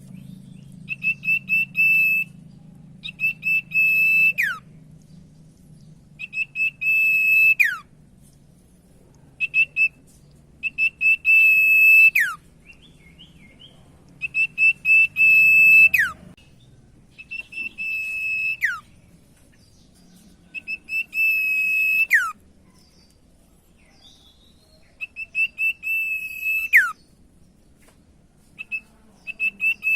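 Common iora (cipoh, 'sirtu') singing: about nine repeated phrases of quick whistled notes on one high pitch, each ending in a held whistle that drops steeply in pitch, with short pauses between phrases.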